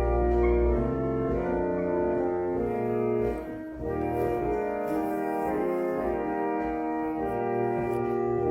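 Church organ playing a postlude: sustained chords changing every second or so over a deep bass note at the start, with a brief break between phrases a few seconds in.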